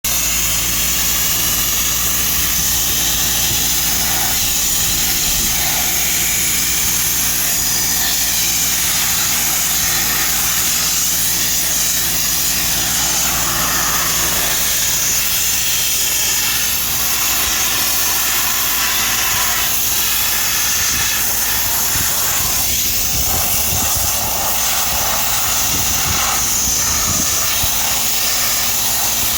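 Dry abrasive sandblasting with a DB800 blasting machine: a steady, loud hiss of air and grit from the blast nozzle, over a constant low machine hum.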